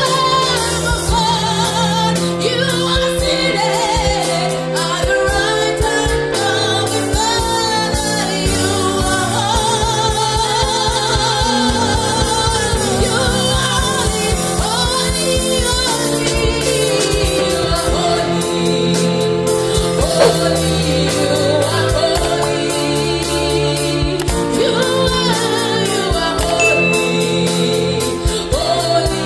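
Gospel worship song performed live: a woman sings with a wavering vibrato over an electronic keyboard and a drum kit.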